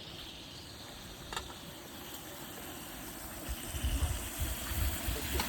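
Water bubbling steadily, with low rumbling thumps in the second half.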